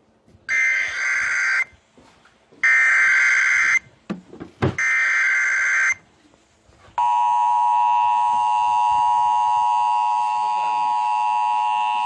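Emergency Alert System alert coming over an FM broadcast on an Eton American Red Cross emergency radio's small speaker. First the SAME digital header: three short bursts of warbling data tones, about a second each. Then, about seven seconds in, the steady two-tone EAS attention signal starts and holds.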